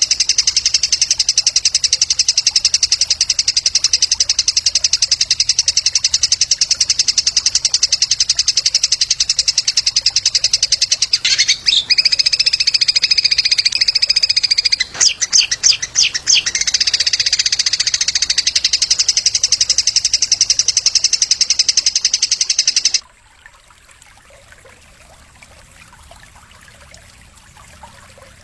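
Recorded songbird song from a masteran training track: a loud, continuous, very rapid high-pitched trill. A clearer whistle enters about twelve seconds in and a few sharp chirps come around fifteen seconds. The song cuts off suddenly about 23 seconds in, leaving a faint hiss.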